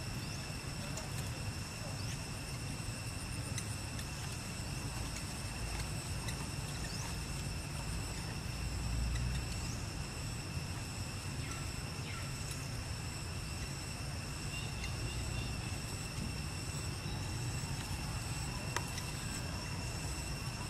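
Steady outdoor background: a constant low rumble with a steady high-pitched drone over it and a few faint chirps.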